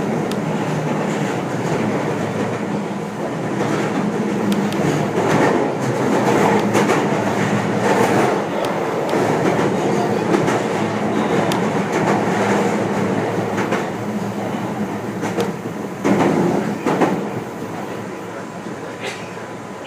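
Meitetsu limited express electric train running, heard from inside the carriage: a continuous rumble of wheels on rail with occasional sharp clicks, louder through the middle and easing near the end.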